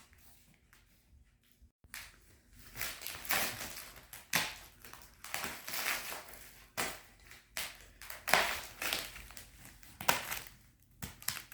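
Thick plastic wrapping on a compressed, rolled mattress being cut and pulled open, crinkling and crackling in irregular bursts that start about two seconds in.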